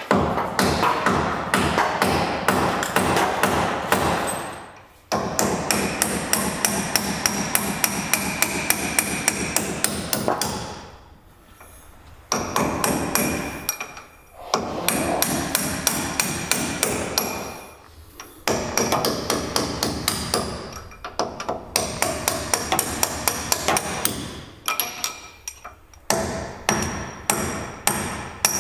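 Air impact wrench hammering in repeated bursts of one to five seconds, a rapid rattle of blows, as it works old bolts on the bus's front chassis loose.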